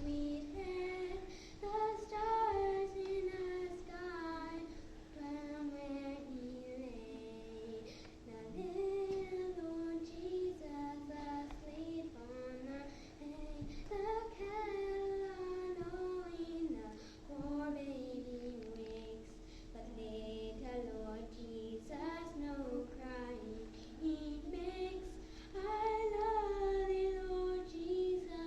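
Children singing a song in phrases, with a woman's voice singing along.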